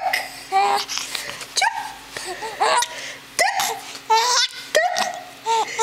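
Infant giggling in short bursts, about one a second.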